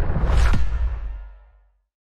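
Whoosh-and-hit sound effect for an animated logo over a deep rumble, fading out to silence by about a second and a half in.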